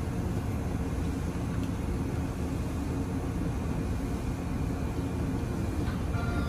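Izu Kyuko 2100 series 'Resort 21' electric train standing at the platform, its onboard equipment giving a steady low hum.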